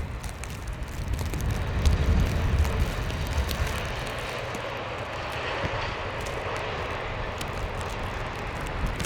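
Engine of a snow-clearing machine running with a steady drone, its low rumble swelling about two seconds in.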